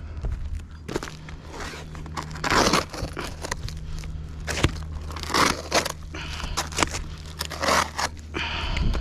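Crunching and scraping of roofing work underfoot and by hand, in swells of about half a second every two to three seconds, with a couple of sharp knocks and a steady low hum underneath.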